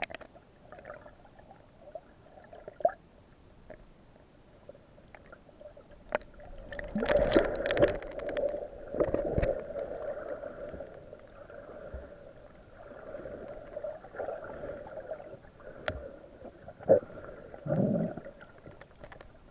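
Muffled water gurgling and sloshing, as heard through a camera held underwater, with louder surges of bubbling and a few sharp knocks.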